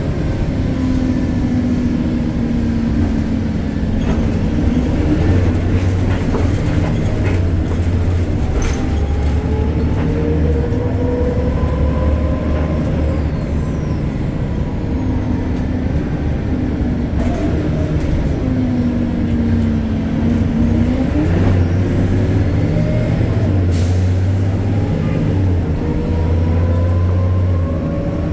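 BredaMenarini Avancity Plus city bus with a Deutz Euro 5 diesel and ZF automatic gearbox driving, its engine and drivetrain whine rising in pitch as it speeds up, falling away as it slows, then rising again near the end. A few sharp clicks and knocks come through over the running.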